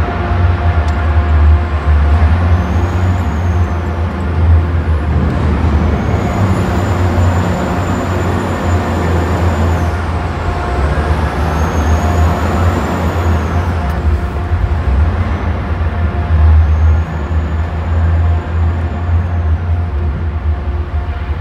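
Underground mine vehicle's engine running with a heavy, steady low rumble. A faint high whine rises and falls four times over it.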